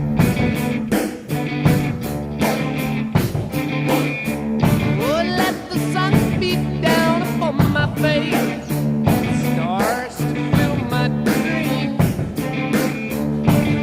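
Rock music with electric guitar and a steady beat, with singing partway through.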